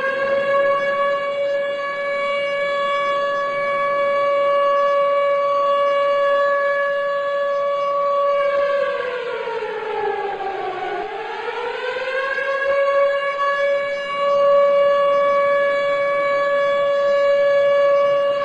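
Civil defence siren sounded for the 10 November moment of silence, holding a steady tone. About nine seconds in its pitch falls and rises back to the same steady tone, and it begins to fall again near the end.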